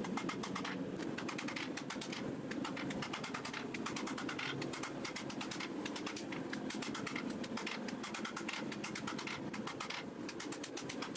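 Power hammer striking a glowing-hot steel knife blade with rapid, even blows, several a second, over a steady low hum.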